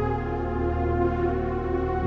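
Ambient background music with long held chords.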